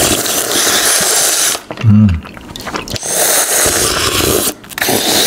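Loud slurping of a milky fruit cocktail with konjac jelly sucked off a plastic spoon: long noisy slurps of a second or more each, with a short low voiced hum about two seconds in.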